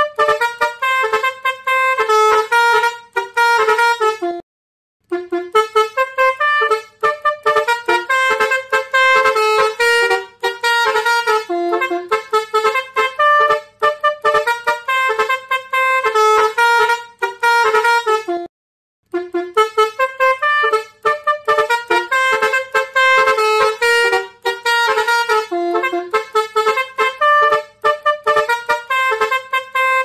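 Basuri musical air horn playing a fast tune of short notes that change pitch quickly, breaking off twice for about half a second.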